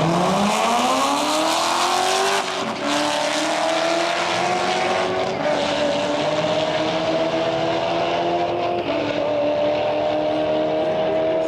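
Drag-racing car accelerating hard down the strip, its engine revs climbing steeply. The revs drop with an upshift about two and a half seconds in, climb again, and drop once more with a second shift near nine seconds.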